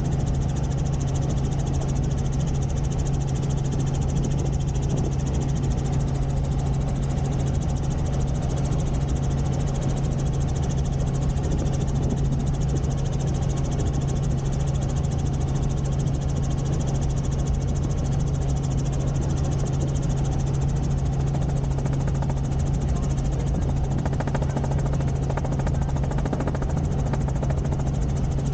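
Helicopter running steadily, a constant low drone with an even rushing noise over it that holds level throughout.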